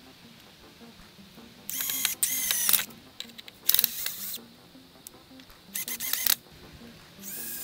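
Cordless drill driving into scrap wood in four short bursts, its motor whine rising and falling in pitch as the trigger is squeezed and eased.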